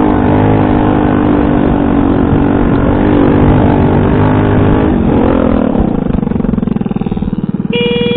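Small motor scooter engine running steadily under throttle while riding over a muddy rutted track; about five seconds in its pitch drops as the throttle is eased, and it runs on slower with a rapid uneven pulsing.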